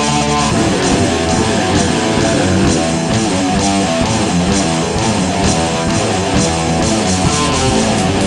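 Metal recording: distorted electric guitar with bass and drums. A held chord gives way to a busier riff about half a second in, with regular cymbal strikes.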